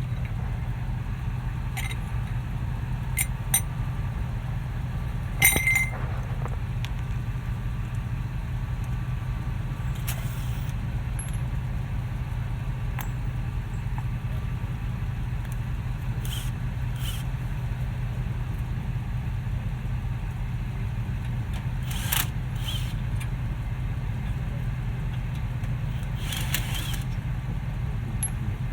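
Metal tools clinking and clanking now and then against the front brake caliper as its bolts are worked loose, one sharper clank about five seconds in, over a steady low hum.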